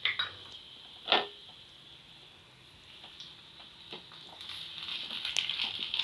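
Chopped tomatoes added to shallots, garlic and dried red chillies frying in oil in a stainless steel pan. Two sharp knocks come at the start and about a second in, then a faint sizzle that grows louder over the last two seconds.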